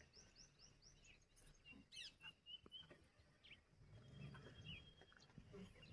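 Faint wild bird calls in near quiet: a quick run of short rising chirps at the start, a louder call about two seconds in, then a thin, steady whistle. A faint low rumble swells near the end.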